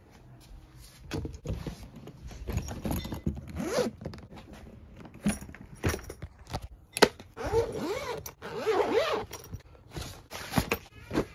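Suitcase zippers being pulled open in several long stretches, with a few sharp knocks in between as the hard shell and its lining are handled.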